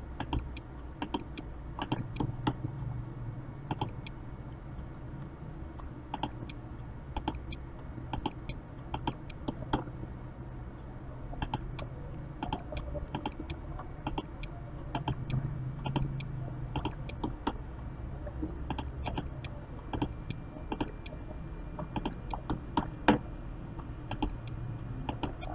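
Computer mouse and keyboard clicks, short and irregular, a few a second, as nodes are placed one by one along an outline with the Bezier tool. A steady low hum runs underneath, and one click a little before the end is louder than the rest.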